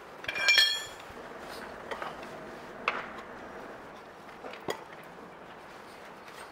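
Metal tyre levers clinking against the wheel rim and tyre-changer stand while a knobby enduro tyre's bead is levered onto the rim: one loud, ringing metal clink about half a second in, then a few lighter knocks.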